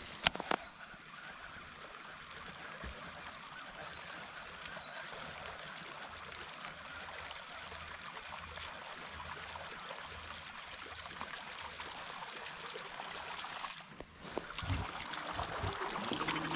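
Faint, steady wash of river water around a drifting boat, with one sharp click just after the start and a few light knocks near the end.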